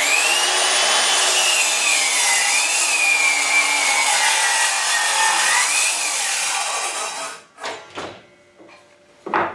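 Metabo KGS18 LTX 216 18-volt cordless brushless sliding miter saw spinning up and cutting through a 2x8 at 45 degrees. The motor's whine sags in pitch under load through the cut and rises again as the blade breaks through about six seconds in, then stops abruptly a little after seven seconds. A few knocks follow.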